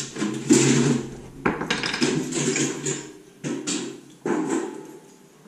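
A dog rummaging in a can of dog bones and tennis balls, the toys clattering against the can and onto the floor in several separate bursts.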